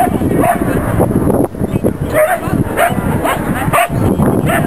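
A dog barking over and over, about two or three short barks a second.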